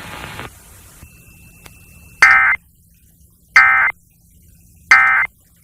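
Emergency Alert System end-of-message data signal: three short bursts of digital data tones about a second apart, marking the end of the alert test.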